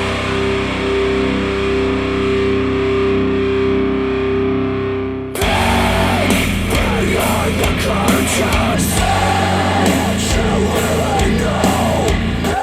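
Rock music with electric guitar, played back through hi-fi speakers. For about five seconds it holds sustained chords with the treble muted, then the full band comes in suddenly.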